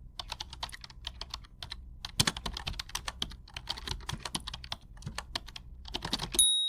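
A run of quick, irregular clicks and taps like typing, then one bright ding near the end that rings on and slowly fades.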